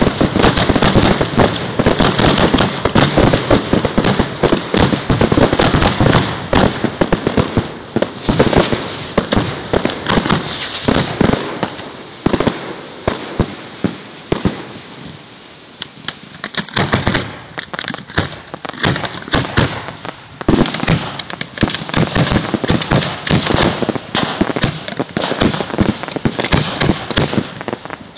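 Grand-finale fireworks mortars firing close by: a dense, rapid barrage of launch thumps and aerial shell bursts. It thins out for a few seconds about halfway through, then builds up again.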